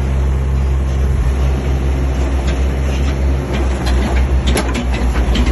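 Caterpillar 305 mini excavator's diesel engine running with a steady low drone. From about three and a half seconds in, the drone starts to pulse and sharp metallic clicks and knocks come in.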